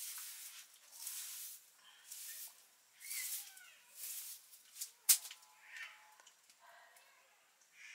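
Pressure cooker on a wood fire letting off steam in short hissing puffs, about one a second, as its pressure builds. There is one sharp click about five seconds in.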